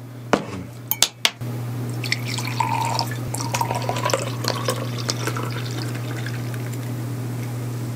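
Beer poured from a glass bottle into a tall glass: a steady pour with fizzing that runs most of the time. It comes after a few sharp clicks in the first second and a half as the bottle cap is pried off with a back scratcher.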